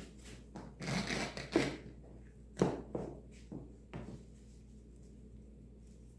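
A series of knocks and thunks from tools and objects being handled and set down on a hard surface, about five or six over the first four seconds, then quiet.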